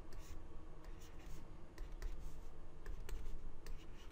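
A stylus writing on a tablet surface: light scratching strokes with irregular short taps, roughly two a second, over a faint low background rumble.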